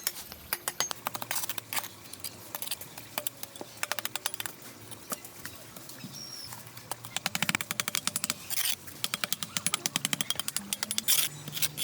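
Bursts of rapid, sharp clicking and tapping, with short gaps between runs, busier in the second half.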